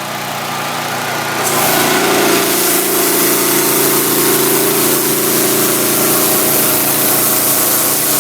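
Gas-powered 3500 psi pressure washer engine running. About a second and a half in, the wand's high-pressure water spray starts with a steady hiss and the engine note changes as the pump takes up the load.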